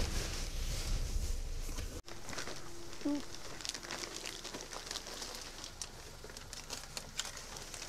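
About two seconds of low car-cabin road rumble that cuts off suddenly. Then comes the light crinkling and rustling of a plastic grocery bag being carried, with small clicks and steps.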